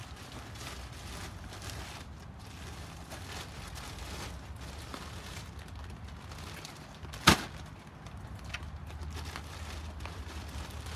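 A heavy bag of mulch is dropped onto a metal flatbed hand cart, a single sharp thud about seven seconds in. Faint handling noise and a steady low background hum run under it.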